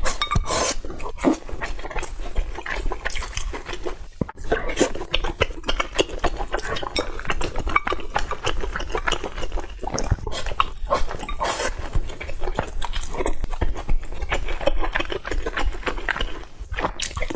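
Close-up eating sounds: a person chewing with wet, irregular mouth smacks.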